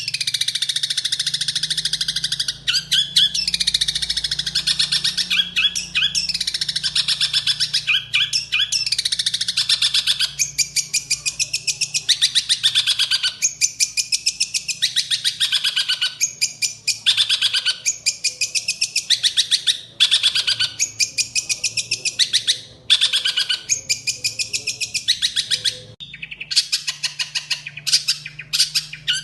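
Songbird singing a long, rapid, chattering song of high trills, whistles and harsh notes, with only brief pauses, over a faint steady low hum.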